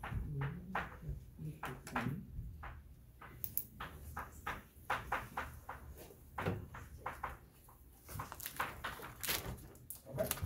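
Chalk writing on a chalkboard: an uneven run of short taps and scratches, several a second, as the chalk strikes and drags across the board.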